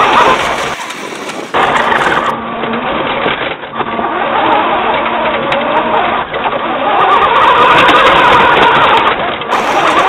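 Drive motor and gearbox of a 1/6-scale remote-control Opel Blitz model truck whining as it drives over snow, heard up close through a small onboard camera. The whine wavers up and down in pitch, with a short drop about a second in.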